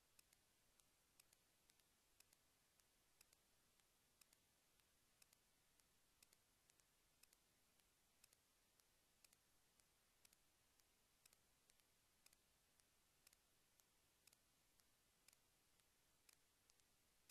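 Near silence, with faint, short clicks at a fairly even pace of about two a second.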